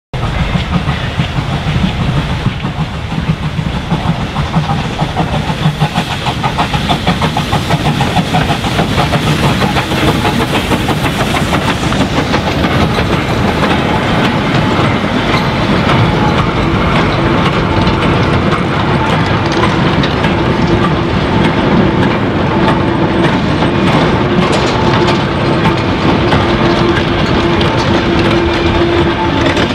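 Loose-coupled goods wagons rolling slowly past, their wheels clicking and clanking over the rail joints. A steady tone comes in about halfway through and grows stronger toward the end.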